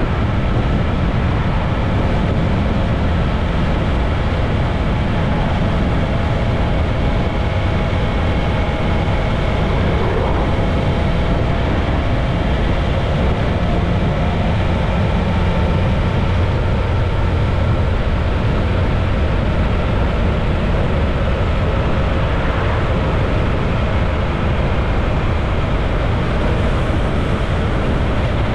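Motorcycle on the move at road speed: steady wind rush over the microphone, with the engine and road noise underneath as a few faint tones that drift slowly in pitch.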